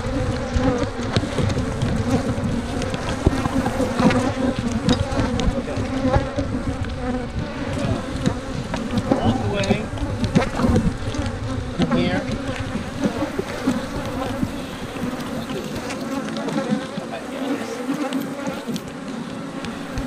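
Honey bees buzzing in large numbers around an opened hive, a steady hum with single bees zipping close past. The colony is stirred up from the hive being opened and worked.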